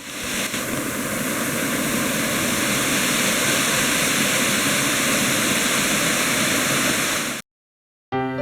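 Waterfall: a steady rush of falling water that cuts off abruptly near the end.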